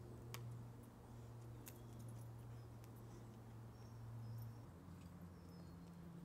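Faint, steady drone of a distant light propeller aircraft, its pitch stepping up about three-quarters of the way through, with a couple of small clicks early on.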